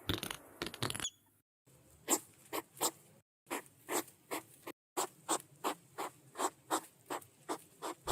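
Hedgehog snuffling: a string of short, sharp breaths, about three a second, with a few brief breaks.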